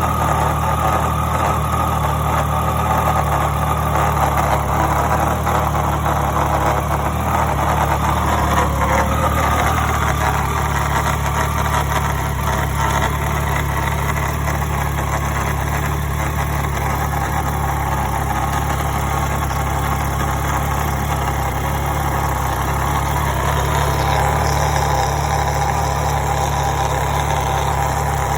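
Triumph Daytona 675's inline three-cylinder engine idling steadily. The owner is recording it for an abnormal noise (異音). A higher, mid-pitched part of the sound fades about nine seconds in and returns near the end.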